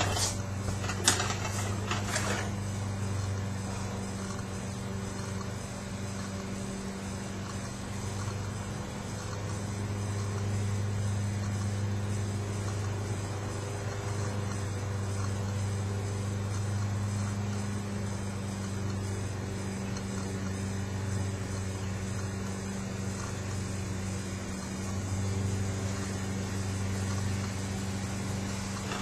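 A steady low machine hum, even in pitch throughout, with a few sharp knocks in the first two seconds.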